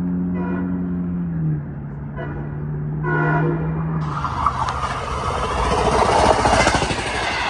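Long Island Rail Road diesel train passing close by. A steady low tone drops in pitch about a second and a half in as the train comes level. A few short tonal sounds follow, then from about four seconds in comes the loud rushing rumble of the cars going by, loudest near the end.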